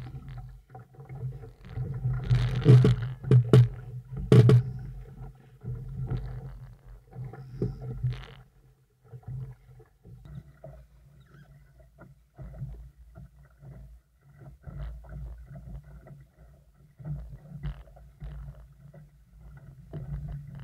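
Wind buffeting the microphone of a boat-mounted action camera on a small sailing dinghy, with water rushing and splashing along the hull. The loudest gusts come about two to four seconds in.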